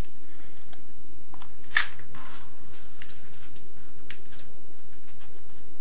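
Quiet handling noises: scattered light clicks and taps of a plastic sewer pipe and a squeeze bottle of oil being handled, with one sharper click about two seconds in, over a faint steady hum.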